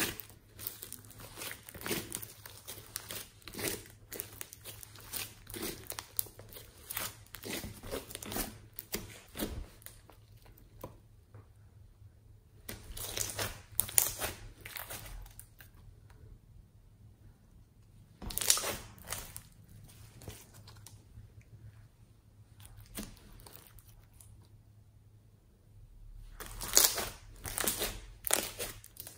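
Pink slime with foam beads squeezed, folded and pressed by hands, giving runs of sharp pops and squelches of air pockets and beads. The pops come thick for the first ten seconds or so, then in separate bursts with quieter stretches between, the loudest run near the end.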